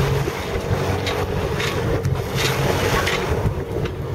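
Wind buffeting the microphone over the rush of choppy water along a small sailboat's hull, with several short splashes of spray.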